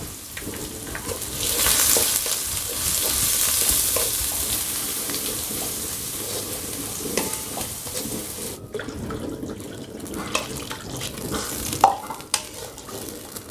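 Spice paste with bay and kaffir lime leaves sizzling in hot oil in a wok while it is stirred with a wooden spatula. The sizzle cuts off abruptly about eight and a half seconds in. After that, quieter stirring follows, with knocks of the spatula against the wok.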